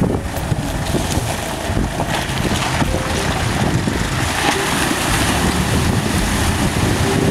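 Mitsubishi Pajero driving through a shallow river: its engine rumbles under water rushing and splashing around the wheels, with the splashing growing a couple of seconds in. Wind buffets the microphone.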